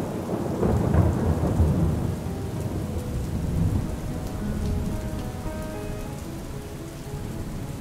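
Steady rain falling, with a low rolling rumble of thunder that swells in the first few seconds and slowly dies away.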